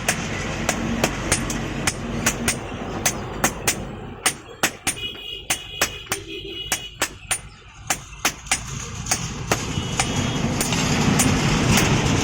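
Blacksmith's hammer striking iron on an anvil at a steady rhythm of about three blows a second, some strikes ringing briefly. A background rumble grows louder near the end.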